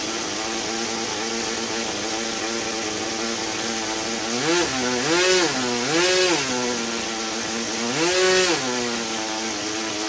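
OS Max NSU Wankel nitro rotary model aircraft engine running steadily with its propeller at idle, then revved up and back down four times, starting about four seconds in.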